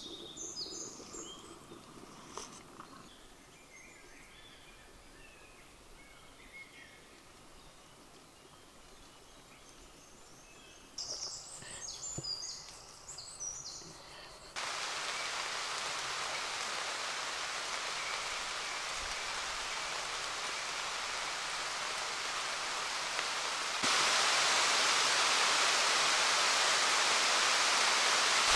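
Birds chirping now and then against a quiet background, then about halfway through a steady hiss of heavy rain cuts in and grows louder in a sudden step near the end.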